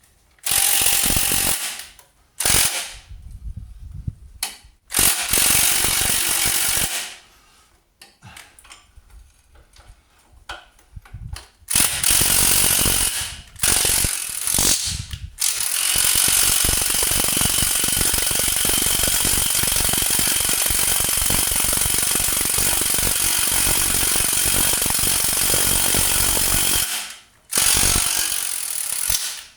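Impact driver hammering at a seized, rusty bolt: several short bursts, then one long burst of about eleven seconds and a short one near the end.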